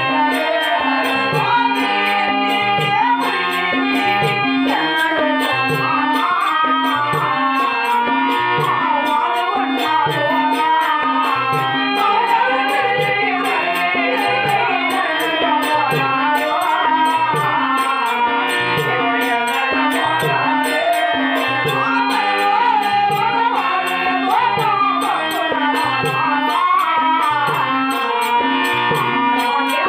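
A woman singing a Telugu stage-drama song, accompanied by a harmonium and a hand drum. A steady drumbeat and a held harmonium note run underneath the voice.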